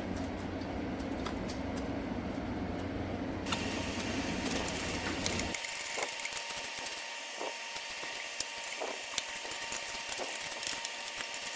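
Hand ratchet and socket on the cylinder head nuts of an air-cooled VW Type 1 engine: scattered sharp metal clicks as the nuts are snugged down a little at a time. A steady low hum runs underneath and cuts off about halfway through.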